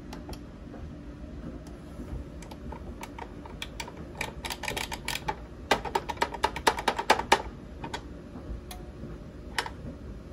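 Sonoff 4CH Rev2 Wi-Fi smart switch clicking as its channel push buttons are pressed and its relays switch. A few single clicks at first, then a rapid flurry of clicks in the middle, the last part the loudest and fastest, and one more click near the end.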